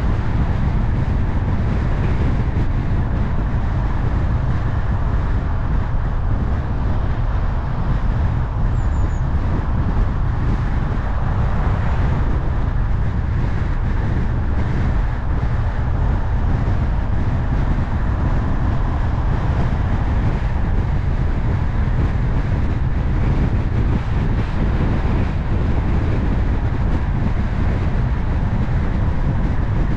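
A car driving steadily on an open road: a constant low rumble of road noise from the tyres and engine, with no changes.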